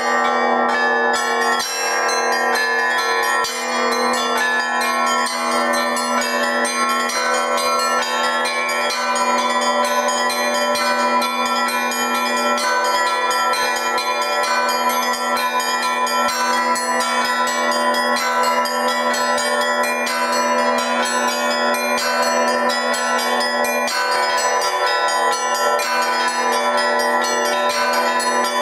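Russian Orthodox church bells rung by one bell ringer from the belfry: a continuous peal in which the small bells are struck in quick, dense patterns over the steady ringing of larger bells.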